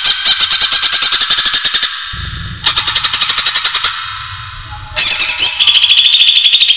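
Green leafbird (cucak ijo) giving a rapid chattering trill of about a dozen sharp notes a second, in three bursts: a pause about two seconds in, a shorter burst, then a loud burst starting about five seconds in. This is the call used as a lure to draw other cucak ijo.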